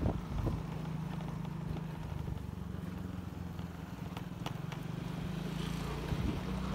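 Motorcycle engine running steadily while riding, a low, even drone, with a few light clicks over it.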